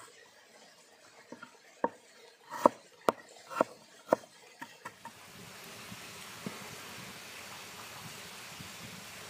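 A large curved knife chopping a carrot on a wooden cutting board: a quick run of sharp knocks, about two a second, through the first half. After that comes a steady hiss with one soft knock.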